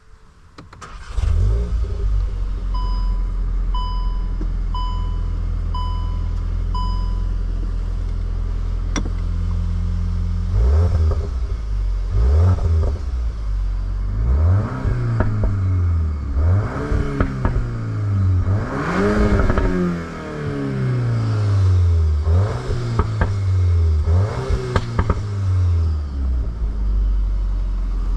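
Volkswagen Golf 8 R Performance's 2.0-litre turbocharged four-cylinder starting about a second in and idling steadily while a chime beeps five times. From about ten seconds in it is revved again and again, the revs rising and falling, with sharp pops between the blips near the end.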